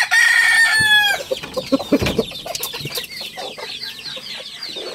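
A gamefowl rooster crowing: the long held call falls away and ends about a second in. Then come scattered clucks and many short, high cheeps from other chickens.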